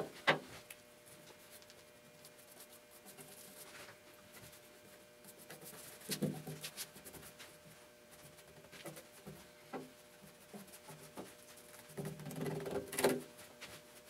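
A paintbrush scrubbing and dabbing thick black coating onto the inside of a sheet-metal box, with irregular scrapes and knocks, the loudest right at the start and near the end. A faint steady hum runs underneath.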